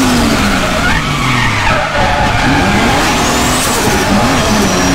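Nissan S15 Silvia's RB30 straight-six heard from inside the cabin while drifting: the revs fall over the first couple of seconds, then rise and fall again and again as the throttle is worked, with the tyres skidding underneath.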